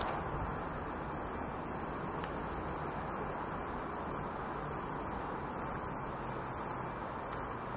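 Outdoor railway-station ambience with no train passing: a steady low background noise, with faint, irregular high-pitched chirping or ringing over it.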